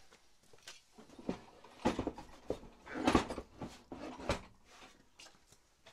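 A run of about half a dozen knocks and clatters from hard objects being handled and set down, with a short scraping rattle in the middle.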